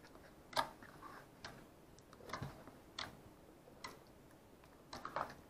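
Blue Nickelodeon slime being squeezed and pressed by hand, giving about six faint, short squishy clicks and pops a second or so apart.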